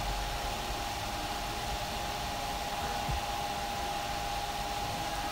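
Steady hissing noise with a constant thin hum-like tone running underneath, and no distinct events.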